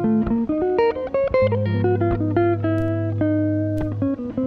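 Chill-out guitar loop music: layered plucked guitar notes over a held low bass note.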